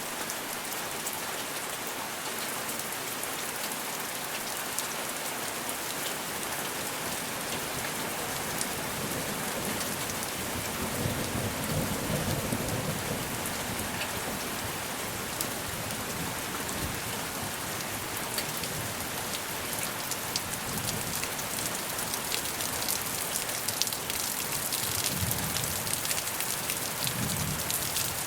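Steady rain falling and pattering on surfaces. A low rumble of distant thunder swells about eleven seconds in and again near the end.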